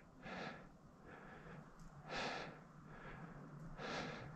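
A man breathing audibly: about five soft breaths close to a second apart.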